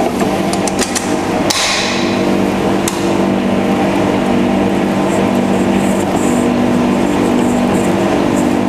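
Stand mixer being set up and run: a few sharp metal clicks as the flat beater is fitted and the head is set, then the motor runs at low speed with a steady hum while the beater mixes flour and shortening in the steel bowl.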